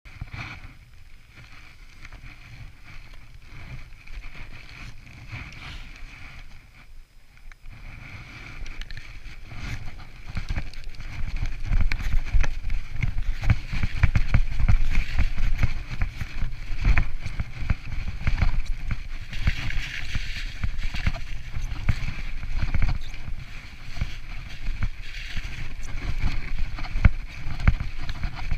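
Wind buffeting a chest-mounted GoPro's microphone as a mountain bike rides down a snowy trail, with the bike rattling and knocking over bumps. It gets clearly louder about eight seconds in.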